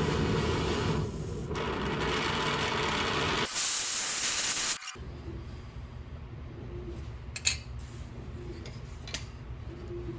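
Gas torch running with a steady hiss while heating a stamped-silver coin blank. The hiss turns thinner and higher about three and a half seconds in, then cuts off suddenly about five seconds in, leaving a quieter low rumble with a few light clicks.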